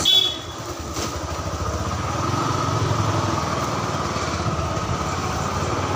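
Small motorbike engine running steadily while riding slowly. A brief high-pitched ring at the very start is the loudest moment.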